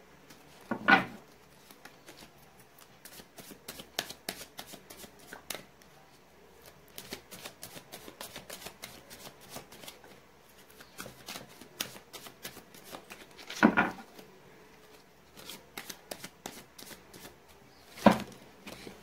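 A new tarot deck being shuffled by hand: a long run of quick, light card clicks, with three louder knocks about a second in, about two-thirds of the way through and near the end.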